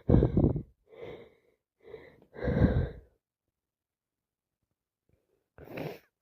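A person sneezing repeatedly: two loud sneezes about two seconds apart, with short catching breaths between them, then two shorter bursts near the end.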